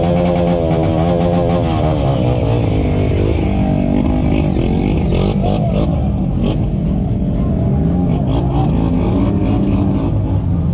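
Off-road vehicle engines revving as they drive through mud, with a dirt bike's engine pitch climbing just as it starts and then holding. Music plays under it.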